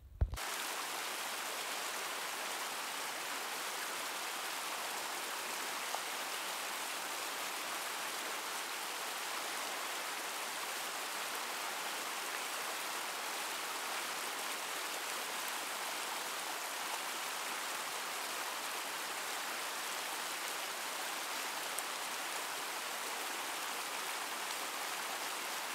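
Small creek rushing over rocks in a white-water riffle: a steady wash of running water.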